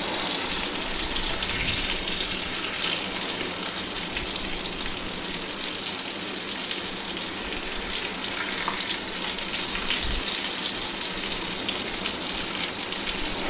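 Chilli-and-flour-coated mackerel pieces shallow-frying in hot oil in a non-stick pan, with a steady sizzling crackle.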